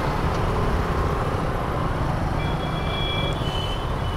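Yamaha MT-15 motorcycle riding slowly through traffic: a steady engine-and-road rumble with wind on the microphone. Faint high-pitched tones from other traffic sound about two and a half seconds in.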